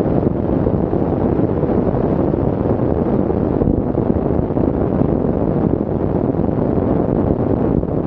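Wind rushing over the onboard camera's microphone on the Voxan Wattman electric land-speed motorcycle at speed: a deep, steady rush with no motor whine standing out above it.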